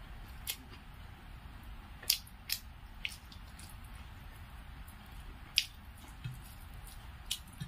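Scattered wet, sticky clicks, about seven in all, the loudest about two seconds in and midway through, as fingers knead rice and cooked poi saag (Malabar spinach) on a metal plate, over a faint low hum.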